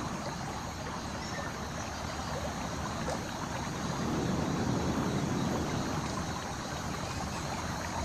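Steady, soft wash of pond water lapping and trickling, with no distinct splashes.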